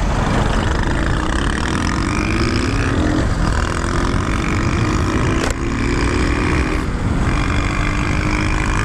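Wind rushing over the camera microphone while riding a small scooter through traffic, with scooter engine notes that rise as they accelerate between about three and a half and seven seconds in. A single sharp click about five and a half seconds in.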